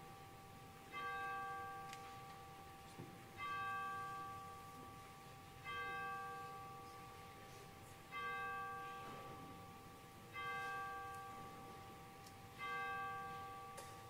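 A single church bell tolling: the same note struck six times at an even pace, about one stroke every two seconds, each ringing on and fading before the next.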